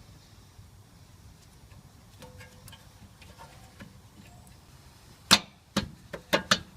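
Sharp clicks and knocks of brake parts being handled during a rear brake pad change: a few faint clicks about two seconds in, then five loud knocks in quick succession near the end.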